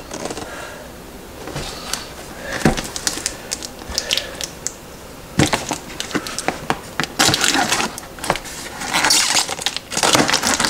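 A cardboard appliance box being handled and worked at to get it open: a string of knocks, taps and scrapes of cardboard against a glass-top stove, with rustling that grows busier in the second half.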